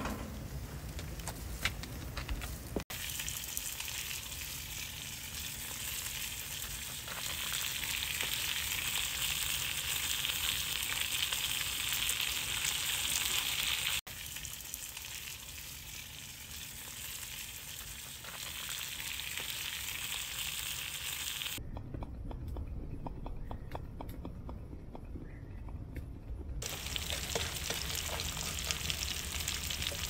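Sliced onion and carrot frying in a frypan over a wood fire, a steady sizzle. The sizzle drops out for a few seconds past the middle, leaving light crackling, then comes back.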